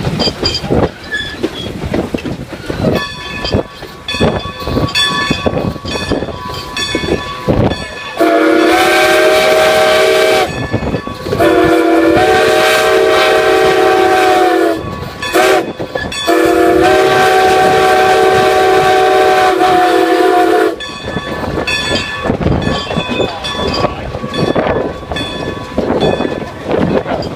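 Steam locomotive's chime whistle blowing the grade-crossing signal: two long blasts, a short one, and a final long one. Before and after the whistle, the train's wheels click rhythmically over the rail joints with a running rumble.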